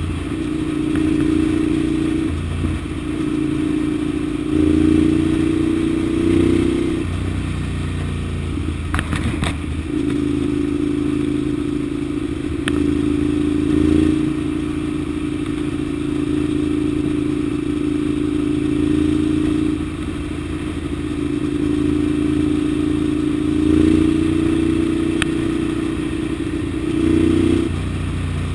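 Ducati Monster 795's air-cooled L-twin engine running at cruising speed, its note swelling briefly a few times as the throttle opens, with a short break in the note about nine seconds in.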